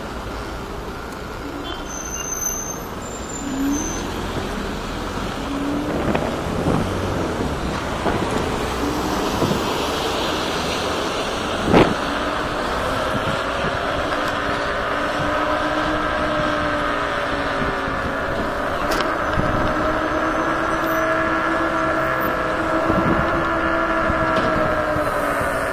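Road traffic noise from passing vehicles. About halfway through, a steady pitched whine with several overtones sets in and wavers slightly until the end, and there is one sharp click just before it.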